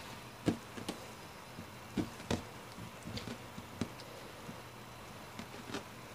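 Soft, scattered knocks and taps of hands pressing and moving rolled Play-Doh strands on a tabletop, a few a second at most, over faint steady hiss.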